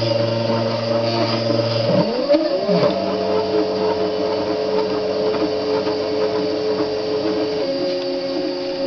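Stepper motors of a small CNC miller whining at steady pitches as they drive a marker pen along straight lines. The tones glide to new pitches with each change of stroke: about two seconds in, again just under a second later, and near the end.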